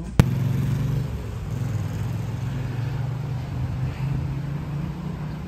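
City street traffic: vehicle engines running with a steady low hum under a faint wash of road noise. A single sharp click sounds just after the start.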